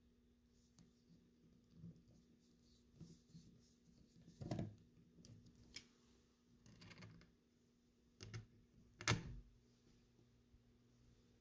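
Faint, scattered clicks and small knocks of steel parts being handled: a screwdriver working a trigger guard screw on an SMLE Mk III* rifle, then the trigger guard being worked loose in the wooden stock. The sharpest knocks come about four and a half and nine seconds in.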